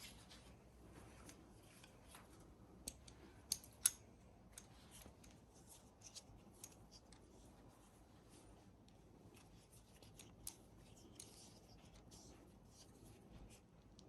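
Scattered small metallic clicks and ticks of hand tools and brake parts being handled, with a few sharper clicks about three to four seconds in and another near ten seconds, as a 6 mm Allen key is worked on the brake fitting.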